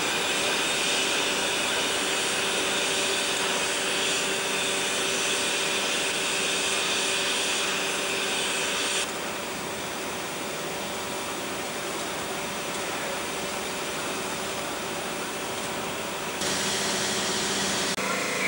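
Steady hiss of steam venting from steam locomotive 3801, a C38-class Pacific. The hiss drops abruptly in level about halfway through and rises again near the end.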